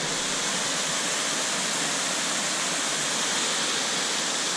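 Waterfall: a steady rush of falling water that comes in suddenly at the start and stays even throughout.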